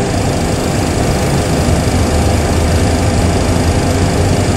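Steady engine and airflow noise in a Boeing 737 Classic simulator cockpit while engine number 1 spools up during its start, with a low hum that grows stronger near the end.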